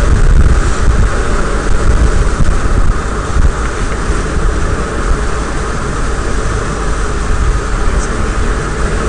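Steady road noise inside a car driving on a wet road: a continuous low rumble of engine and tyres with some wind.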